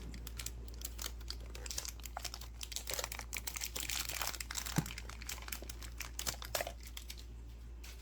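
Plastic packaging crinkling and tearing as a collector tin is unwrapped and opened by hand, a dense run of crackles and rustles.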